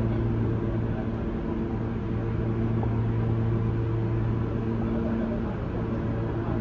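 Steady low hum of an L-line subway train standing at the terminal platform, its air-conditioning and auxiliary equipment running, with several held low tones.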